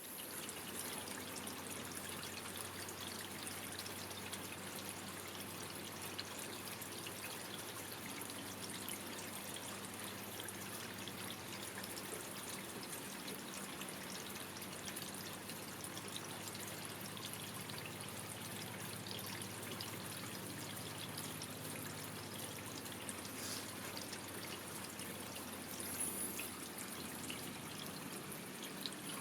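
Steady rain falling, with water dripping and trickling, and a faint low hum underneath.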